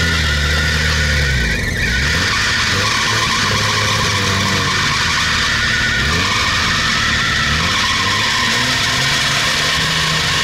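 Off-road car's engine revving up and down under heavy load, dipping briefly about a second and a half in, with a steady high whine and hiss over it.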